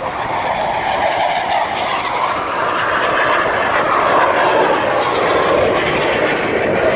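Jet engine noise from a single military jet making a low pass: a loud, steady rushing roar that grows louder over the first second or two and stays loud.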